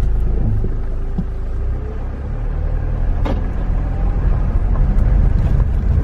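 Car engine and road rumble heard from inside the cabin as the car pulls away: a steady low rumble that grows louder and rougher a couple of seconds in as the car gets moving, with a single sharp click about three seconds in.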